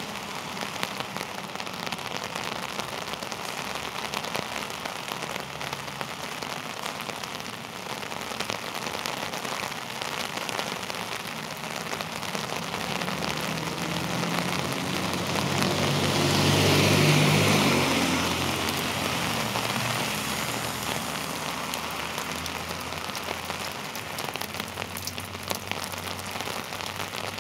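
Heavy rain falling steadily, with many separate drop hits. A louder swell of hiss rises and fades about two-thirds of the way through.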